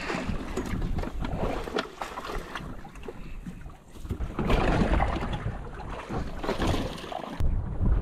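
Wind on the microphone with splashing and dripping water as a hoop net for ballyhoo is hauled up out of the sea by its rope and swung into the boat. Bursts of splashing come about halfway through and again near the end.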